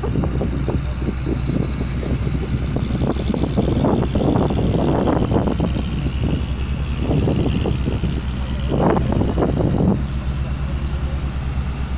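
A river ferry's engine running with a steady low drone, with irregular louder noise on top that stops about ten seconds in, leaving the even drone.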